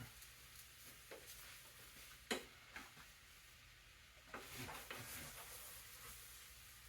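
Sparse light clicks and knocks of kitchen utensils and cookware being handled, over a faint low hum; the sharpest knock comes a little past two seconds in.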